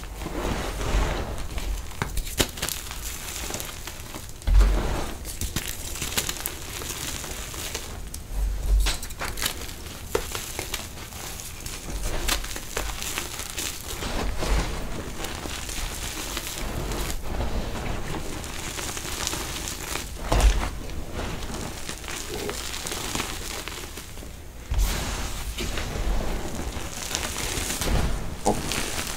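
Hands squeezing and crumbling gravelly soil mixed with powdery gym chalk: a continuous gritty crunching and crackling of grains, with a few dull thumps as the hands press into the ground.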